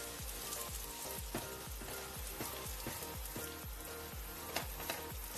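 Minced garlic sizzling and crackling in a hot pan as it is sautéed and stirred with a wooden spatula, over background music with a steady beat.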